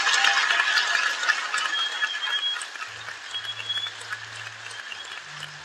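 Audience applauding as the tango music ends, the clapping gradually dying down.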